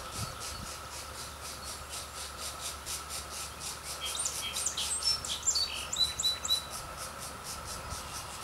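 Birds calling: a fast, even, high pulsing runs throughout, with a run of varied chirps and a few short, repeated piping notes in the middle.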